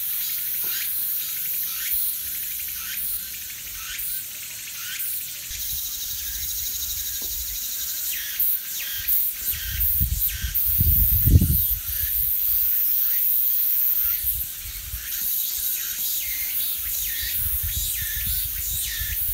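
Insects trilling steadily in the background, with short bird chirps scattered through, and a low rumble on the microphone about ten to twelve seconds in.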